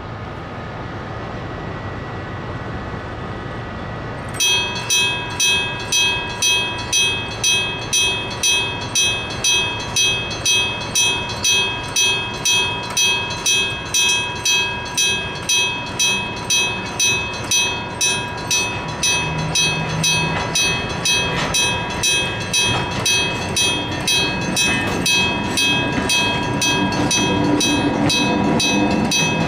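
Level crossing warning bell starting about four seconds in, ringing steadily at roughly three strikes every two seconds. Under it, the low running of a small electric shunting locomotive moving freight wagons grows louder near the end as it comes closer.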